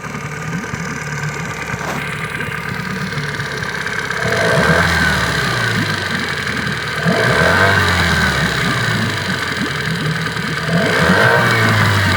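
Yamaha 8 hp outboard motor running, briefly revved up three times, each rise easing back. It carries an extraneous noise that the owner is trying to show.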